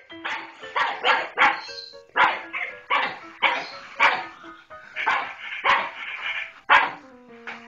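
Small dog barking in a long series of sharp barks, about two a second, over background music.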